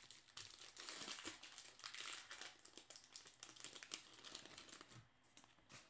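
Plastic trading-card pack wrapper being torn open and crumpled by hand: a dense, crackly crinkling that dies down about five seconds in.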